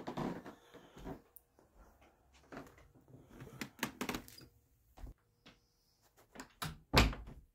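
Handling noise from a phone being carried and turned around: scattered knocks, rubs and rustles, with one hard thump about seven seconds in.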